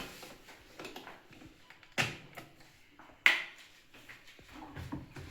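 Stainless steel electric kettle being handled while it is readied for boiling: two sharp clicks, about two seconds in and again a little over a second later, with lighter taps between.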